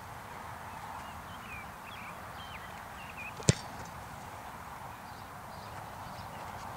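One sharp thump about three and a half seconds in: a kicker's foot striking a football off a field goal holder.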